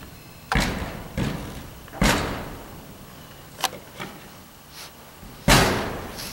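Dull bangs and knocks of ice tools and crampons striking a panelled artificial dry-tooling wall, about six hits, each ringing briefly through the hollow panels, the loudest about five and a half seconds in.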